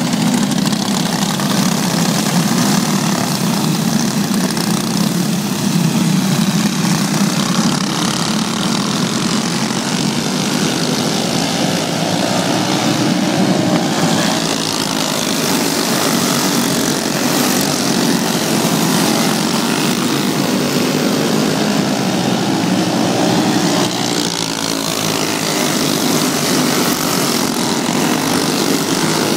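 A pack of racing karts with Briggs & Stratton Animal four-stroke engines running together around a dirt oval, a continuous high engine whine whose pitch wavers up and down as the karts pass through the turns.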